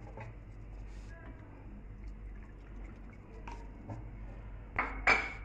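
Water poured from a cup into a glass of syrup and ice cubes, with faint drips and ticks. Two sharp knocks near the end are the loudest sounds.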